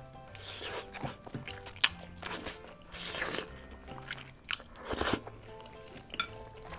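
Close-miked eating: wet slurps of glass noodles and aged kimchi from a spicy braised chicken stew, with chewing and crunchy bites in between. Soft background music plays underneath.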